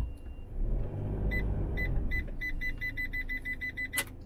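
Vehicle parking-sensor beeper sounding over the engine running at low speed while the campervan is manoeuvred into its pitch: short high beeps that come quicker and quicker as the van closes in on an obstacle. A single sharp click near the end.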